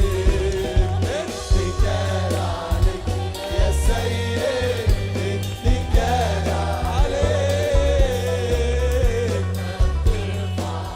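Arabic Christian worship song: voices singing a wavering melody over a band with bass and a steady beat.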